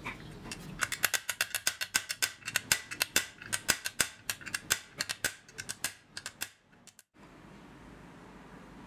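Rapid, sharp metallic clicking, several clicks a second, as a T-handle tool is worked on a bolt in the rusty bracket of an old Makita circular saw. It stops about seven seconds in, leaving a faint steady hiss.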